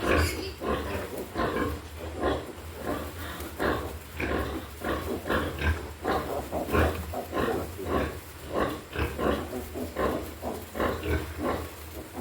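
Pigs grunting, with short calls coming several times a second and no let-up, over a steady low hum.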